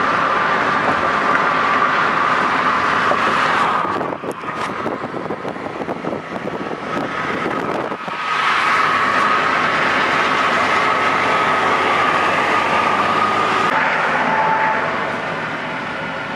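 Road and wind noise inside a vehicle's cabin at highway speed, with a steady whine running through it. It turns quieter for a few seconds about a quarter of the way in, then comes back, and drops again near the end.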